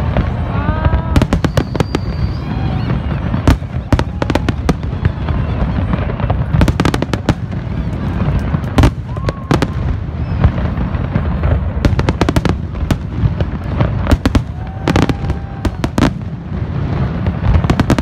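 Fireworks display: many aerial shells bursting and crackling in dense, overlapping succession over a continuous low rumble.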